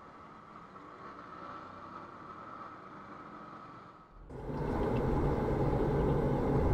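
Faint steady street-traffic noise with motor scooters passing. About four seconds in, it cuts abruptly to much louder steady engine and road noise, heard inside a moving car.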